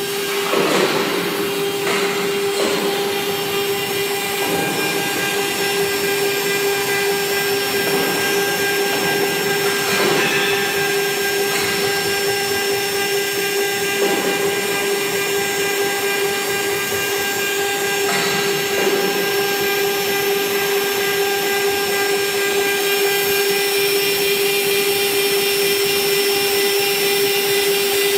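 CNC wood router carving a relief: the spindle runs with a steady high whine over a rough, uneven hiss of the bit cutting wood.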